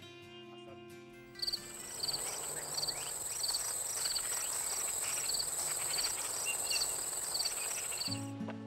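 Insects chirping outdoors: short cricket-like chirps repeating about twice a second over a steady, high-pitched insect buzz. Background music fades out in the first second or so, and a new piece of music starts near the end.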